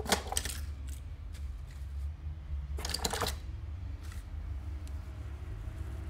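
Toy packaging being handled: two short bursts of plastic and cardboard clicks and crackles, one at the start and one about three seconds in, over a steady low hum.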